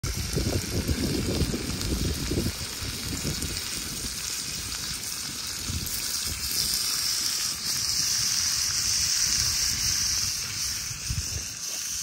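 Steady rush of running water, growing stronger about halfway through, with uneven low rumbling over the first couple of seconds.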